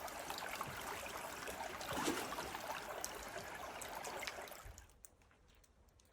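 River water flowing and trickling steadily; it fades out about five seconds in.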